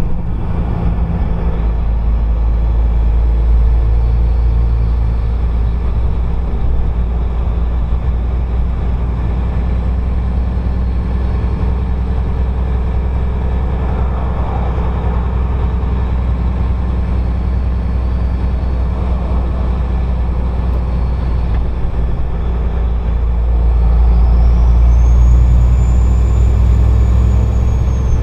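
Turbocharged vehicle engine running at speed with a steady low drone. Near the end the engine pulls harder and a high turbo whistle rises, holds, then slowly falls away.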